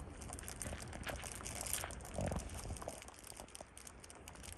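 Several rabbits chewing food from bowls: a rapid, continuous patter of small crunches, with one louder dull bump about two seconds in.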